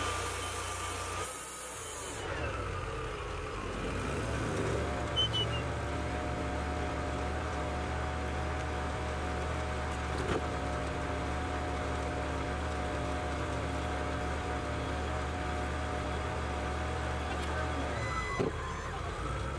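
Wood-Mizer hydraulic portable band sawmill running, its engine holding a steady drone. The pitch shifts about a second in, and a short whine falls and rises again near the end.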